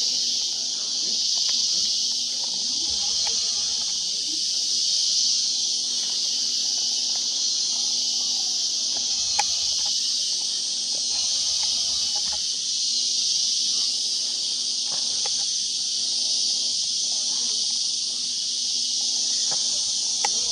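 Dense chorus of insects making a steady, high-pitched continuous drone, with a single sharp tick about halfway through.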